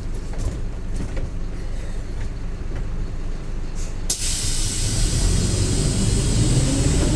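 Mercedes-Benz OF-1721 bus's four-cylinder diesel engine running, then a loud hiss of compressed air from the bus's air system starts suddenly about four seconds in. The hiss carries on while the engine grows louder.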